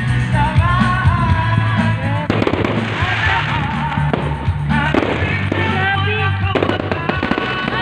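Aerial fireworks going off in a series of sharp bangs, over loud amplified music with a heavy bass.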